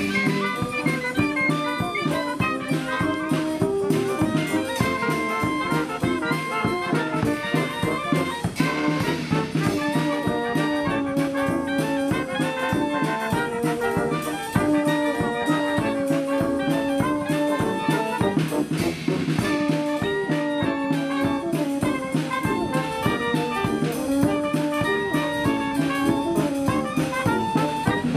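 Military brass band playing a tune, with trumpets carrying the melody over low brass.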